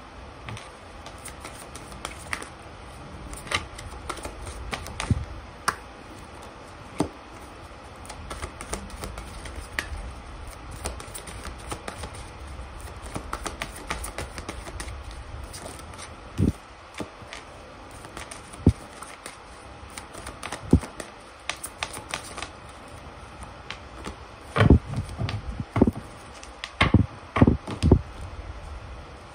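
Tarot cards being shuffled by hand, giving scattered soft clicks and flicks. Near the end comes a run of sharper taps and slaps as cards are laid down on a table.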